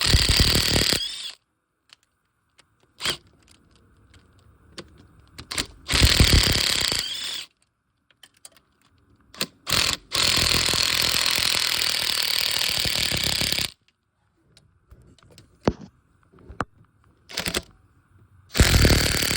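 A power tool with a 10 mm socket running in four bursts, the longest about three and a half seconds, as it spins out the bolts holding the intake horn. Sharp metallic clicks come between the bursts.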